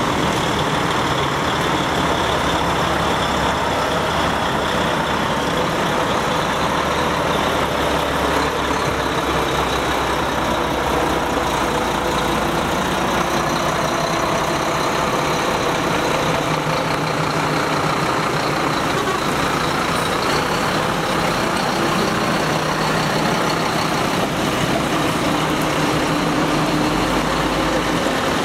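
Heavy truck diesel engines, a DAF XF and Scania tractor units, running steadily at low speed as the trucks drive past one after another.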